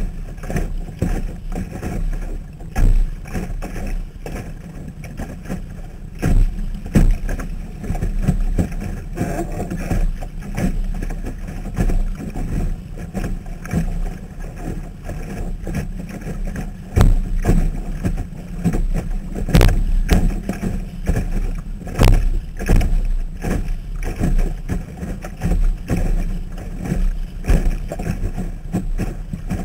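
Water slapping and rushing against a Sunfish sailboat's hull, heard through a waterproof camera housing mounted on the boat: a steady low rumble broken by sharp knocks every few seconds, the loudest about two-thirds of the way through.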